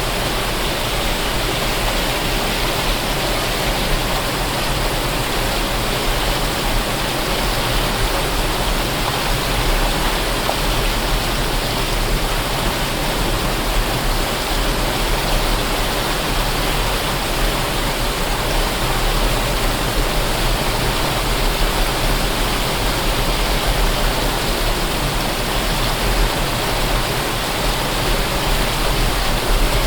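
Waterfall: water falling and splashing, a steady rushing roar with no change.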